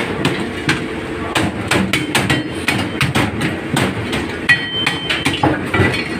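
Rapid, irregular knocks of a blade chopping on a wooden chopping block, about three a second, as live mud crabs are split, over a steady kitchen hum.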